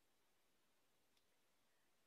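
Near silence: room tone, with one very faint click a little after a second in.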